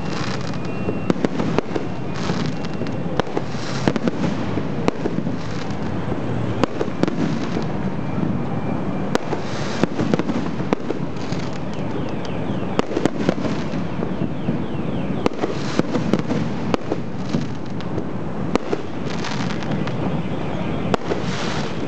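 Fireworks display: a dense, steady noise of bursting shells with many sharp bangs and crackles following one another throughout.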